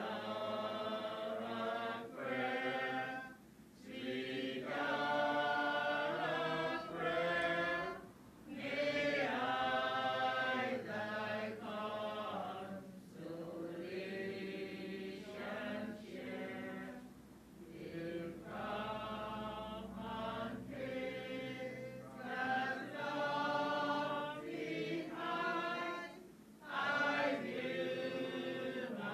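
Vocal music: voices singing a slow song in long held phrases, with short breaks between them.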